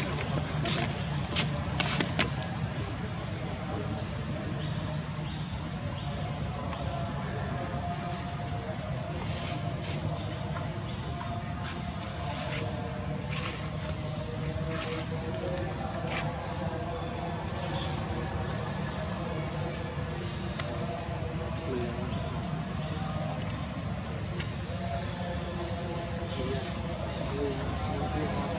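Steady insect chorus: a constant high buzz with short upward chirps repeating through it, over a low steady rumble, with scattered faint clicks.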